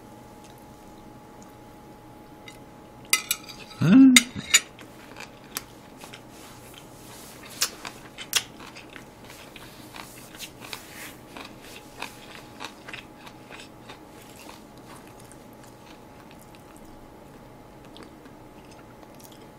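Eating at a table: metal chopsticks and a spoon clicking against plates and a bowl, with some chewing, heard as scattered small clicks that are busiest in the first half. A short vocal sound comes about four seconds in.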